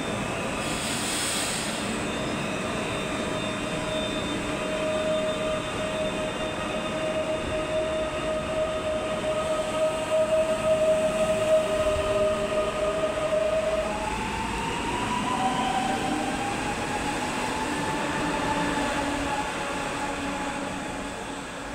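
Stadler FLIRT ER160 electric multiple unit running, with the whine of its traction drive over the rail noise. About fourteen seconds in, the steady whine tones drop out and higher tones take over and rise in pitch.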